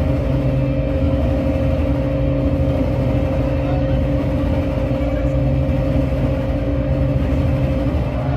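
Live noise music: a loud, unbroken drone of several held tones over a dense low rumble, with no beat or change.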